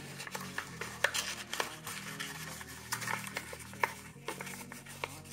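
A stiff paper certificate being handled and rolled up by hand around a cardboard tube: scattered light crackles and clicks of the paper.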